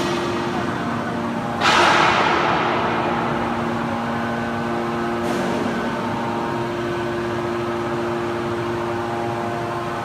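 Hydraulic metal baler running with a steady, even machine hum. About two seconds in a sudden loud rushing noise breaks in and fades away over a second, and a fainter one follows a few seconds later.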